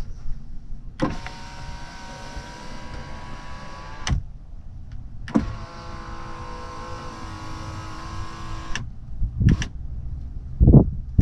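Rear power window motor and regulator of a Mercedes W124 E320, the regulator freshly repaired, running the glass twice for about three seconds each, with a steady whine and a click at each start and stop. A few dull thumps follow near the end.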